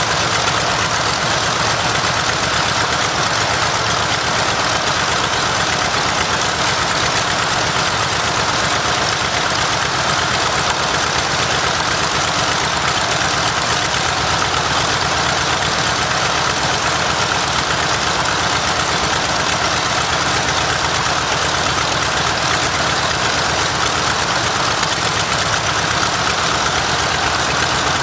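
Nakajima Sakae 14-cylinder air-cooled radial engine of an A6M Zero fighter running steadily and loudly during a ground run, with no change in speed.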